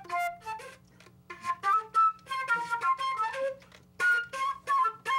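Silver transverse flute playing short phrases of single notes, with brief pauses about a second in and again just before the fourth second.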